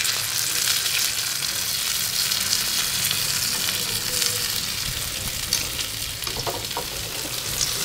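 Hot oil sizzling and crackling steadily in a skillet as an egg-coated eggplant omelette fries.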